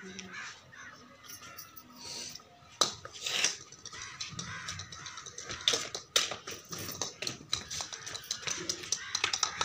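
Irregular sharp knocks and clicks, the loudest about three seconds in and again around six seconds, with faint voices in the background.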